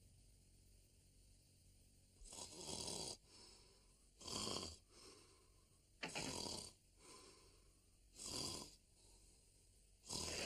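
Cartoon dog snoring: four loud snores about two seconds apart, each followed by a fainter breath, starting after a quiet couple of seconds.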